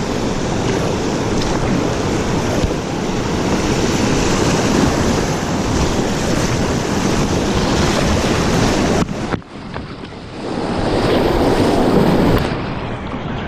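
River rapids rushing loudly, with wind noise on the action camera's microphone. The sound drops suddenly a little past the middle, then builds back up over about a second.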